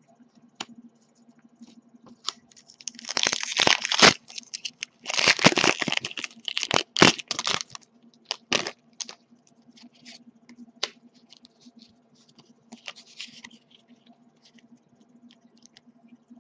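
Foil Pokémon booster pack being torn open and crinkled, in loud ripping bursts about three seconds in and again from about five to eight seconds, followed by the light flicking and clicking of trading cards being handled.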